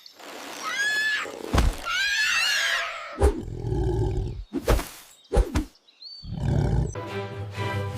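Animal calls, two wavering cries, among several sharp thuds; background music starts near the end.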